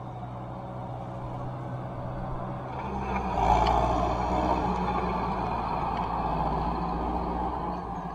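John Deere 6420 tractor's diesel engine running steadily. It gets louder about three seconds in as the tractor comes close, then stays at that level.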